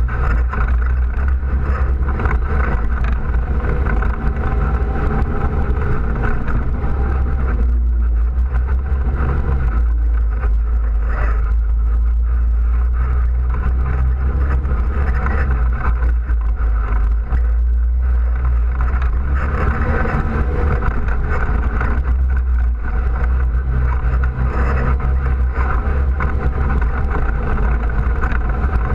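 ATV engine running steadily under way on a gravel trail, heard from a camera mounted on the machine's front rack, with a heavy low rumble.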